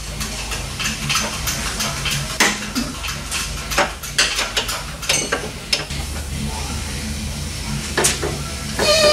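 Metal hand tools clinking and clanking irregularly against the steel front suspension of a Fox Body Mustang on an alignment lift, over a steady low hum.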